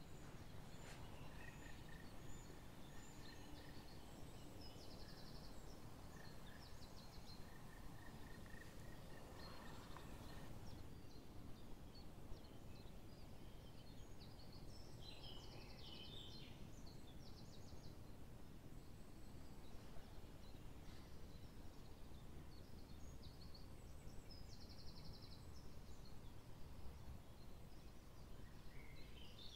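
Faint dawn birdsong from small songbirds: scattered high chirps and several short, rapid trills, over a steady low rumble of background noise.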